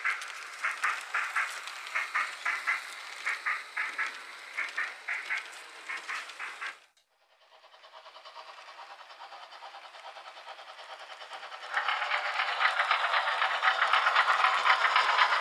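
H0 model train coaches rolling past, their wheels clicking over the rail joints in quick regular pairs. About seven seconds in the sound cuts out briefly, then a steady whirring runs on and gets clearly louder about twelve seconds in.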